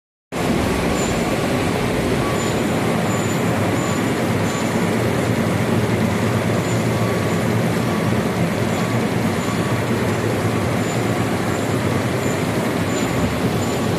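Feida central-impression flexographic printing press running, its rollers carrying and printing a kraft paper web for paper bags: a steady, loud mechanical running noise with a low hum. Faint short high-pitched chirps come and go throughout.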